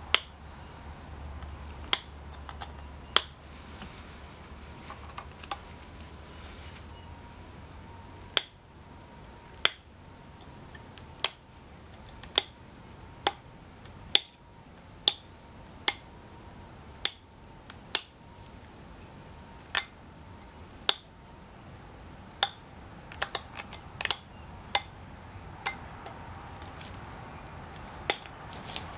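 Sharp clicks of flakes snapping off the edge of a Texas tabular flint blade under a copper-tipped pressure flaker, during finishing pressure flaking. The clicks come about once a second or two, with a quick run of several a little past three quarters of the way through.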